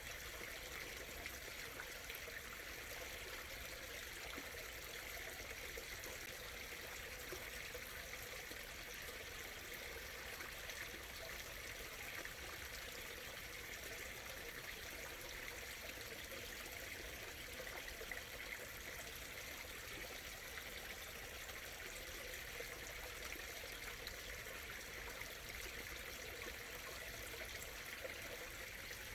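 Small stream murmuring and trickling steadily over stones.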